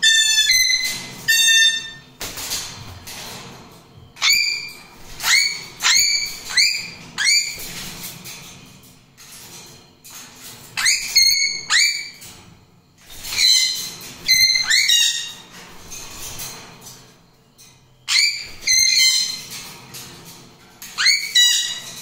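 Pet parrots calling in short rising whistles, in quick clusters of a few notes that recur every few seconds.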